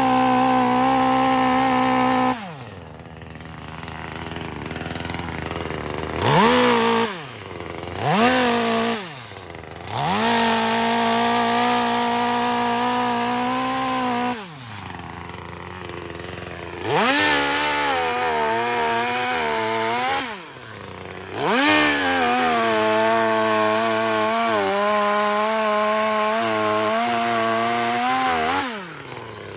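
Two-stroke chainsaw being throttled up again and again: two short blips and several long full-throttle runs of two to seven seconds, dropping back to idle between them. In the later runs the pitch wavers and sags a little.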